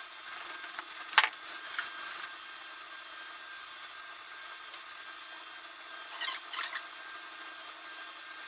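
Wire brush scrubbing the threads clean to take off excess, in short scratchy strokes, with one sharp tap about a second in.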